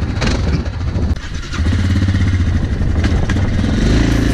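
ATV engine idling with a steady low rumble, picking up in a short rising rev near the end.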